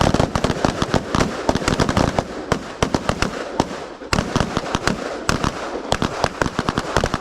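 Rapid, overlapping gunfire from several shooters firing at once on a firing line during a rifle-to-pistol transition drill: many sharp shots, densely packed with no real break.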